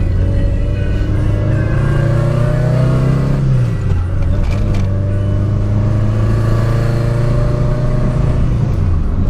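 Car engine accelerating through the gears: its pitch climbs steadily, drops at a gear change about three and a half seconds in, climbs again, and drops at another change near the end.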